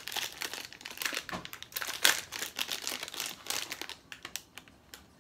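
Gold foil sachet crinkling and crackling as it is worked open by hand. Dense crinkling for about four seconds, loudest about two seconds in, then dying away to a few small clicks.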